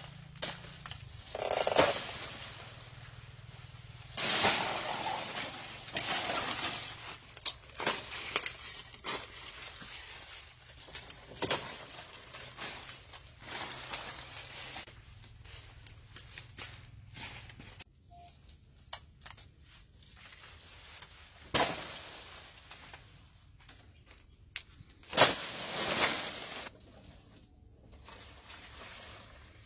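Irregular rustling and knocking of a green banana bunch being cut and handled among dry, fallen banana leaves, in uneven bursts with several louder ones.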